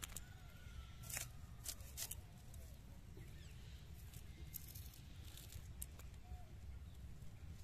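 Red onion being sliced against a bonti, the fixed upright curved blade of a Bengali floor cutter: a few short, crisp cuts, most of them in the first two seconds, faint over a low rumble.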